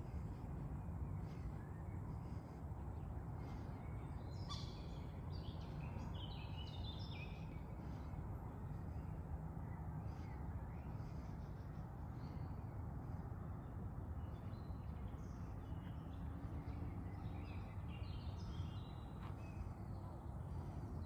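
Birds calling and chirping in short scattered phrases, busiest about four to seven seconds in and again from about fifteen seconds, over a steady low outdoor rush.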